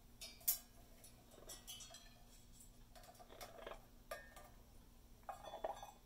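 Amazon parrot's beak knocking and rattling a stainless steel food dish in its metal holder: irregular clinks, the sharpest about half a second in and a quick cluster near the end.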